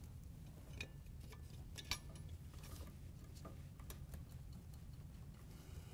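Faint clicks and scrapes of a plastic refrigerator compressor start device being pushed by a gloved hand onto the compressor's terminal pins, the sharpest click about two seconds in, over a low steady hum.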